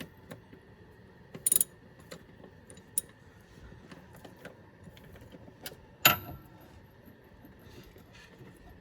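Scattered metallic clicks and knocks as tools and a drain pan are handled, with a sharp clatter about a second and a half in and a loud ringing metal clank about six seconds in.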